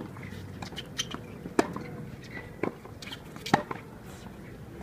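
Tennis balls struck with rackets and bouncing on a hard court during a practice rally: about five sharp pops, the two loudest about two seconds apart.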